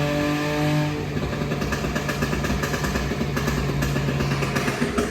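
Volkswagen Up MPI's 1.0 three-cylinder engine held at steady revs, then let off about a second in. Its exhaust then crackles and pops rapidly and continuously on the overrun, without any throttle: the pops-and-bangs remap ('pipoco infinito') at work.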